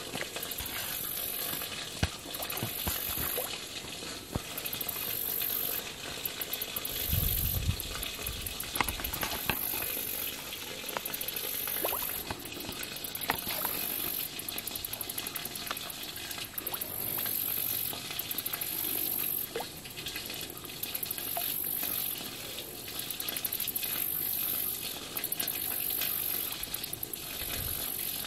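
Carp feeding at the pond surface, splashing the water repeatedly as they take food, with a heavier splash about seven seconds in.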